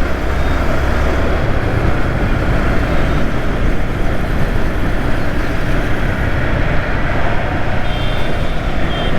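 Yamaha R15 V3 motorcycle's single-cylinder engine running under way, mixed with heavy wind rush on the helmet-mounted camera; the engine note steps up about a second and a half in. Faint high beeps near the end.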